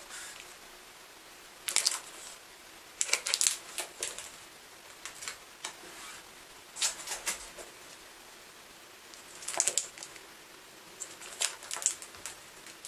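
Paperback books being handled and laid one on another on a digital kitchen scale: clusters of light paper rustles and soft taps every second or two, with quiet between them.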